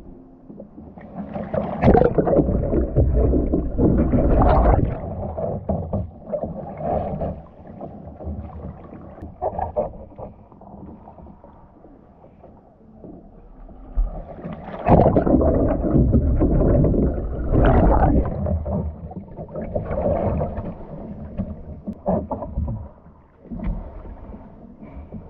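Water sloshing and splashing around a kayak's bow as the paddle is worked through the water, in two louder spells about 2 and 15 seconds in and quieter lapping between.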